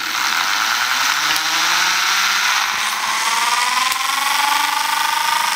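Small electric motor whirring as it spins the CD disc of a homemade Voss electrostatic generator, with a buzzing rattle of the thin wire brushes and combs bouncing against the disc. It starts abruptly, and its whine climbs slowly in pitch as the motor speeds up.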